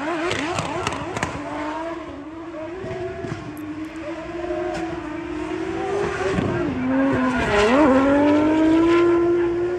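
Drift car engine running at high revs through a drift, its pitch holding high, dipping twice with throttle changes about two-thirds of the way in, then rising again and getting louder near the end, with tyres squealing under it.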